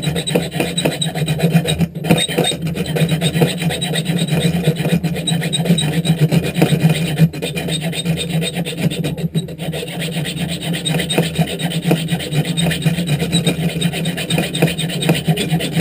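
Diamond file of a Leatherman Charge TTI multi-tool rasping back and forth across a steel bolt clamped in a vise, in rapid steady strokes, the cut about three-quarters through. The filing breaks off briefly about 2, 7 and 9 seconds in.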